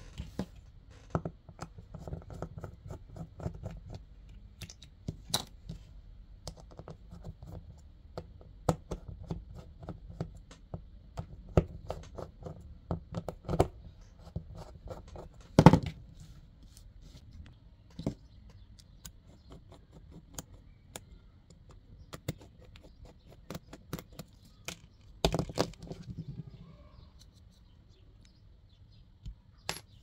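Small parts and tools being handled and worked by hand: irregular clicks, taps and scrapes over a low handling rumble, with a louder knock about halfway through and another flurry of knocks later on.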